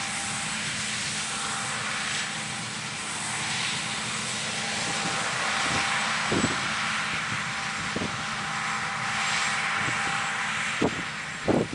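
Large diesel harvest machinery running steadily in the field: an even engine drone with a constant whine over it. A few short thumps come in the second half.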